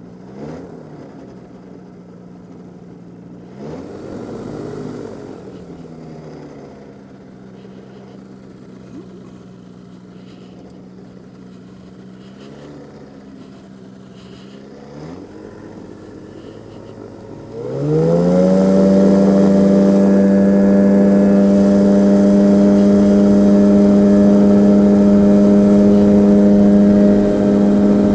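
Two-stroke engine of a Pegasus Quasar flex-wing microlight trike idling while taxiing, with a few brief throttle blips. About two-thirds of the way in it is opened up to full power for the take-off run and holds a loud, steady drone.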